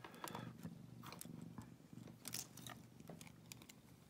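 Faint small metal clicks and scrapes of a warded pick being turned inside an old Seal warded lock, over a faint low hum.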